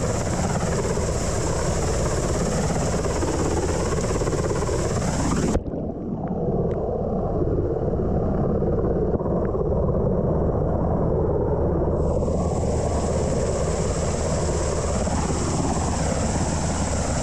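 UH-60 Black Hawk helicopter hovering low overhead: steady rotor and turbine noise, with rotor wash beating on the water and the microphone. About a third of the way in the sound turns muffled for about six seconds, then comes back.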